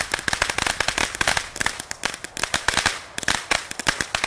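Small consumer firework going off in a rapid run of sharp crackling bangs, many a second, with a brief lull about three seconds in.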